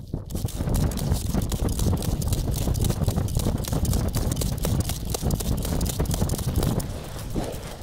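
Pulk sled being hauled over crusty snow, heard from a camera mounted on the sled: a continuous scraping and crunching of the runners with many rapid small knocks and a low rumble, starting suddenly and easing a little near the end.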